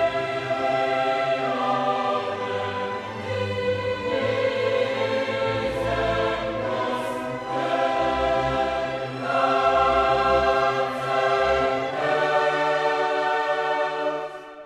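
Choral music: a choir singing long held chords in a classical style, with orchestral backing.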